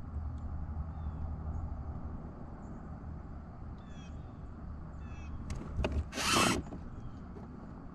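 A fishing kayak under way on a lake, with a low steady hum that fades about six seconds in, a few faint high bird chirps, and a short loud burst of rushing noise just after the hum fades.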